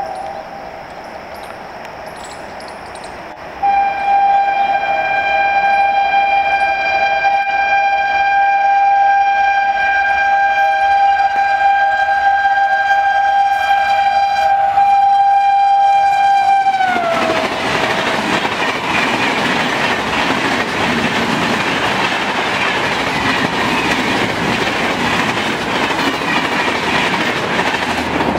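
Electric locomotive horn of the Bhopal Shatabdi Express at high speed: a brief gap near the start, then one long continuous blast that drops in pitch as the locomotive passes. Then the loud rush and wheel clatter of the coaches speeding past at about 145 km/h.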